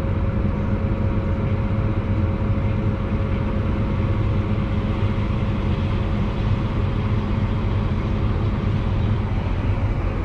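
Large diesel harvest machinery running steadily under load, a constant low drone with a steady whine over it.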